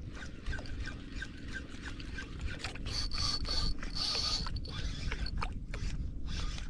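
Fishing reel being cranked while a metal jig is worked, with light repeated ticking and a couple of short high whines over a steady low rumble.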